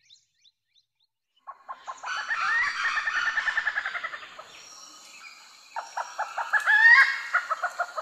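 A forest bird calling in rapid stuttering pulse trains, twice: the first starts about a second and a half in and lasts a couple of seconds, the second starts about six seconds in and rises in pitch near its end.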